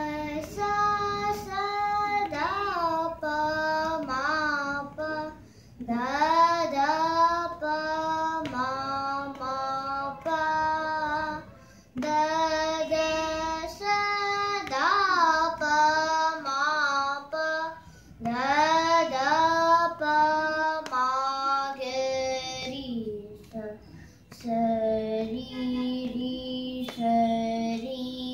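A young girl singing a Carnatic geetham solo, in phrases with gliding, ornamented notes and short breaks for breath between them.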